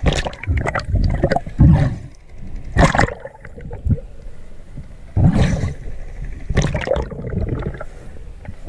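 River water sloshing and gurgling around a camera as it goes under the surface, in irregular loud surges every second or two.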